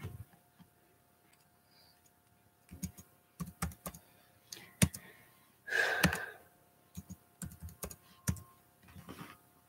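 Typing on a computer keyboard: scattered, irregular key clicks, with a short hiss about six seconds in.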